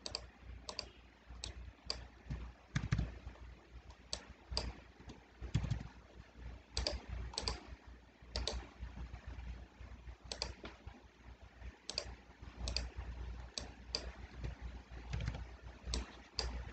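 Irregular clicks of a computer mouse and keyboard keys, about one or two a second, over a low steady hum.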